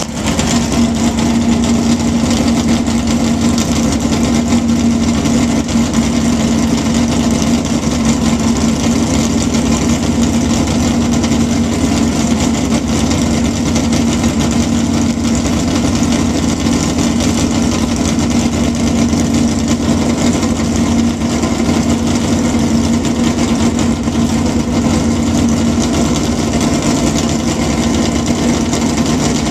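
Drag car's engine idling steadily on a chassis dyno, with no revving, while the car is strapped down before a dyno run.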